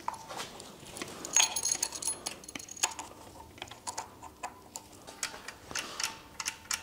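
Irregular metallic clinks and rattles of a steel timing chain and hand tools being handled while a new timing chain is fitted around the engine's sprockets and guides; a few of the clinks ring briefly.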